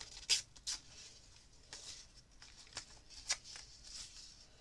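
Brown packaging paper torn by hand into a strip and handled: a series of short papery rips and crackles, the two loudest in the first second.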